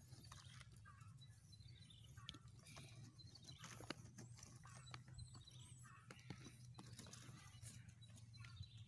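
Near silence: faint scattered clicks and soft high chirps over a low steady hum.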